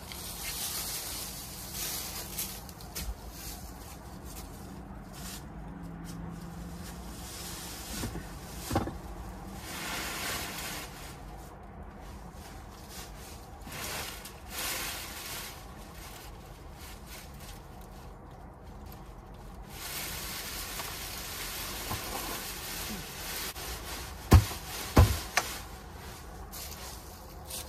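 Dry leaves rustling under foot and under a plastic compost barrel as it is carried and upended onto a leaf pile, with two sharp thumps close together near the end as the barrel is set down upside down on the pile.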